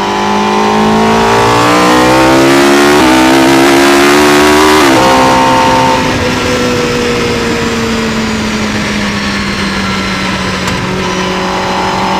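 Ariel Atom V8's 3-litre V8, built from two Hayabusa engines, revving hard under acceleration with its pitch climbing steadily. About five seconds in the pitch drops sharply, as at an upshift. After that the note falls slowly and a little quieter as the car eases off.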